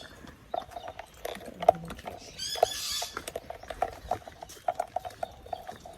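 Footsteps walking on a hard surface: a string of short knocks, about two or three a second. A brief high-pitched sound comes in about two and a half seconds in.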